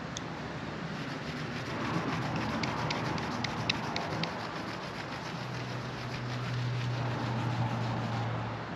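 Cloth soaked in blending solution rubbing over a car bonnet's painted surface, wiping off excess touch-up paint. A low steady hum joins in past the halfway point.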